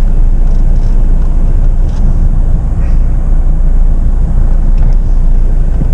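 Jeep Meridian SUV rolling slowly over a rough off-road trail with the accelerator released: a steady, loud low rumble.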